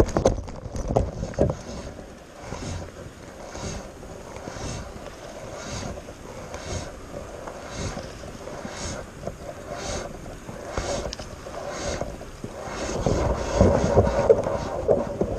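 Wind buffeting the microphone on an open skiff, with a soft swish about once a second as fly line is stripped in hand over hand on a two-hand strip retrieve. It grows louder near the end.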